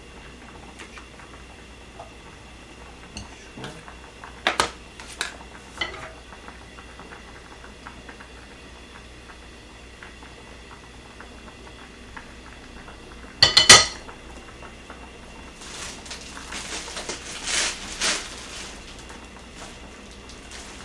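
A spoon clicks a few times against a plastic margarine tub and the frying pan, then the pan clatters loudly onto the gas stove's grate about thirteen seconds in. A few seconds of light sizzling follow as the margarine starts to melt in the hot pan.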